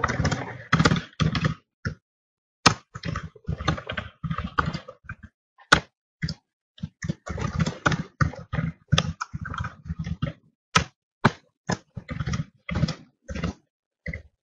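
Typing on a computer keyboard: quick runs of key clicks in irregular bursts, broken by short pauses.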